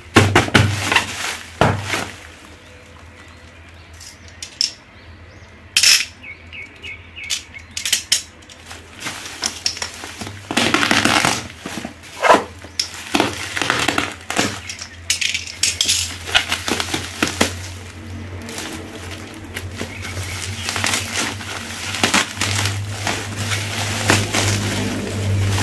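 Plastic bubble-wrap parcel packaging crinkling and tearing as it is handled and ripped open by hand, in irregular bursts with short pauses between.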